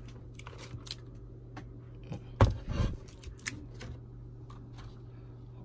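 Handling noises on a desk: scattered clicks and knocks, with two heavier thumps about halfway through, over a steady low hum.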